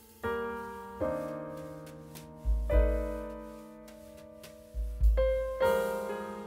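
Background music: piano chords struck one after another, each ringing out and fading, with two deep bass booms under them.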